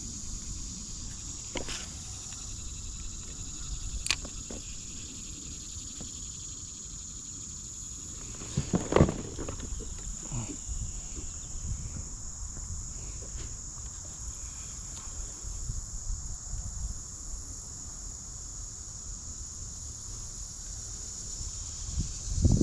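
A steady, high-pitched drone of insects in summer vegetation, running unbroken throughout. A few faint clicks and one short, louder noise about nine seconds in stand out over low handling rumble.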